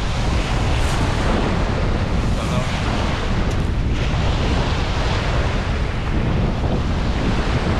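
Wind buffeting the microphone in a steady low rumble, over waves breaking and washing up a pebble beach.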